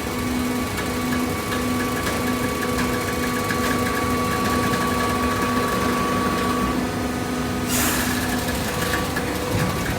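Horizontal hydraulic waste paper baler running: steady machine noise with a low hum that pulses on and off about twice a second, a steady higher whine that stops near seven seconds in, and a short hiss about eight seconds in.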